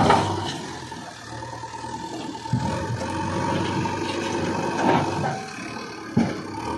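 JCB backhoe loader's diesel engine running under load as its front loader bucket shoves a large boulder over dirt. A steady high whine runs over the engine, and a few sharp knocks come from the bucket and rock, the loudest right at the start.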